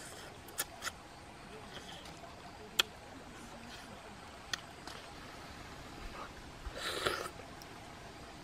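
A person eating fish by hand from a bowl: a few sharp mouth clicks and lip smacks while chewing, and one short, louder noisy sound about seven seconds in.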